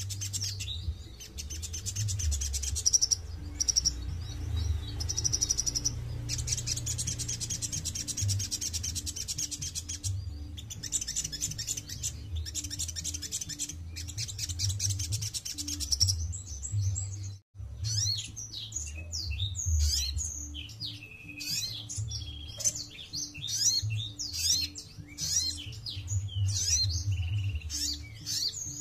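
Small songbird singing high, fast buzzy trills in long runs, then a varied string of sharp chirps and sweeping whistles after a brief break in the sound about two-thirds through.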